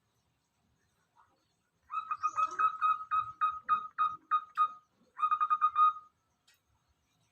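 Zebra dove (perkutut) cooing: a run of about a dozen quick notes that spreads out toward its end, then a second short, fast run.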